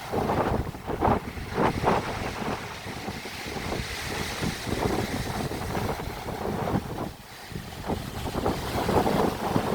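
Sea waves washing and splashing in uneven surges, with wind buffeting the microphone.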